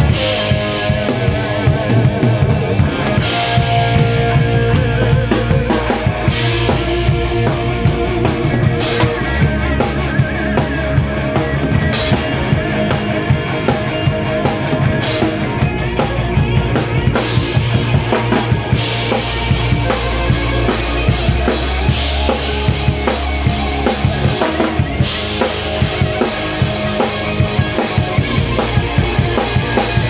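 A rock band playing live: a drum kit with bass drum and cymbal crashes, over bass and electric guitars. From about twenty seconds in the drummer settles into a fast, steady cymbal beat.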